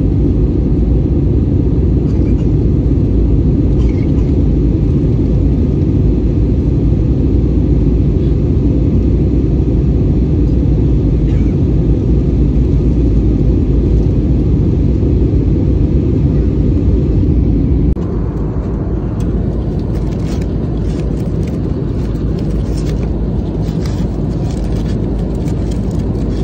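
Steady, loud low rumble of an airliner's jet engines and airflow heard from inside the passenger cabin, climbing after takeoff. About eighteen seconds in it changes to a softer cabin hum with scattered clicks and rustles.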